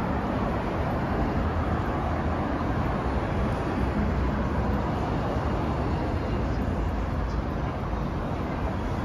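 City street ambience: a steady wash of road traffic noise.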